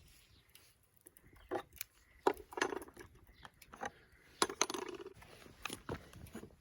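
Metal camp gear clinking and knocking as it is handled: several irregular clinks with brief ringing, starting about a second and a half in.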